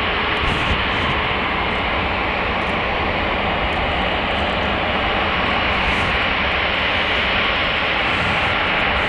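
Airbus A380's four Rolls-Royce Trent 900 turbofans at low taxi thrust as the airliner rolls past: a steady jet rush, even in level, strongest in the upper-middle range, with a faint steady hum underneath.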